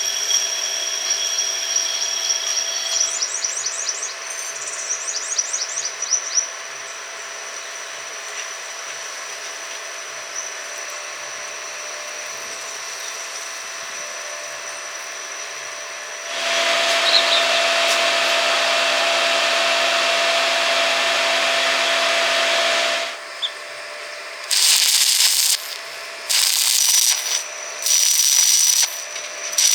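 Workshop power tool running steadily for about six seconds in the middle, with a low hum under it. It is followed near the end by a series of short hissing bursts, each about a second long.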